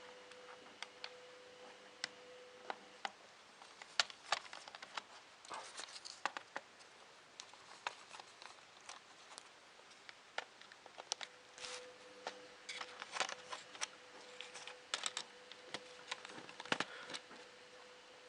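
Irregular light clicks, taps and short scrapes of a screwdriver, small screws and the Spectrum+'s plastic case being handled while the case screws are undone. A faint steady hum sits underneath for part of the time.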